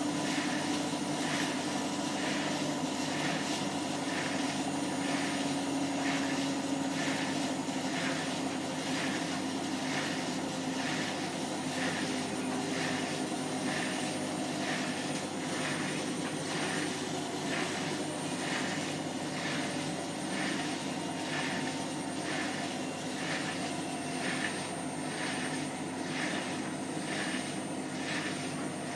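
Hotpoint washing machine on its spin cycle: a steady motor and drum whir, with a squeaking, scraping noise that repeats a little more than once a second throughout.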